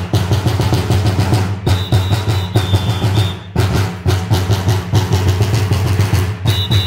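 A row of large bass drums beaten together in a fast, steady rhythm for a Romanian bear dance. A shrill whistle sounds over them for a second or two about two seconds in, and again near the end.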